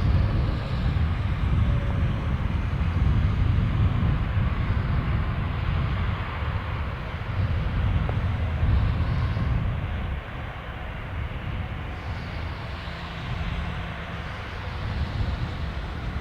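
Airbus A340's four jet engines giving a steady rumble, easing somewhat about ten seconds in.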